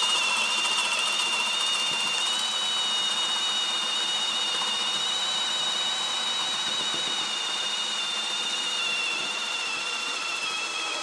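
Ridgid cordless hammer drill in drill mode on speed 1, boring a spade bit into a thick wooden beam: a steady high motor whine under load that stops abruptly right at the end as the hole is finished.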